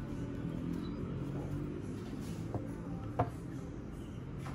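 A Corelle bowl set down on a tabletop: a light tap, then a sharper knock about three seconds in. Soft background music plays throughout.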